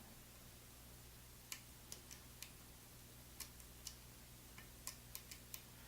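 Faint, irregular light clicks of a lock pick working the pins of an ASSA Twin Combi lock during single-pin picking, about a dozen ticks spread over the last four seconds, with a faint low hum beneath.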